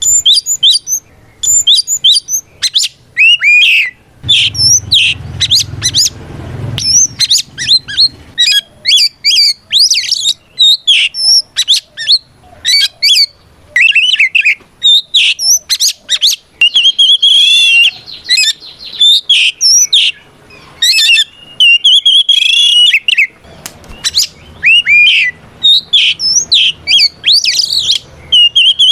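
Oriental magpie-robin singing a loud, rapid, unbroken string of varied whistles, chirps and quick swooping notes. This is the full-volume challenge song a male uses to call out a rival.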